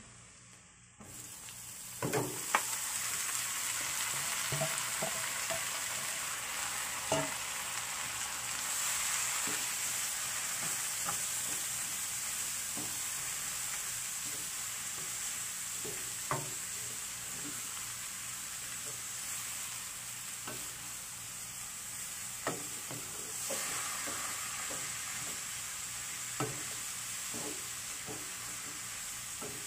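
Shredded white radish (daikon) stir-frying in hot oil, sizzling steadily while a spatula stirs it. There are scattered short knocks and scrapes of the spatula against the pan. The sizzle starts about a second in and jumps louder about two seconds in, as the radish goes into the pan.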